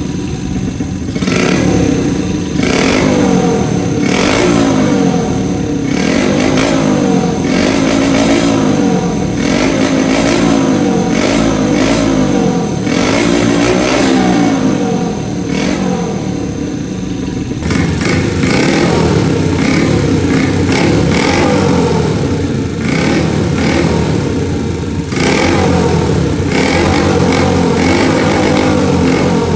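Custom Honda Monkey's small single-cylinder four-stroke engine revving through a Pretty Racing aftermarket exhaust, blipped up and down over and over. The note turns brighter about two-thirds of the way through.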